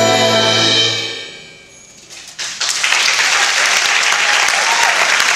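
A brass band's final held chord, with sousaphones, cuts off about a second in and rings away. After a brief lull, audience applause starts about halfway through and continues.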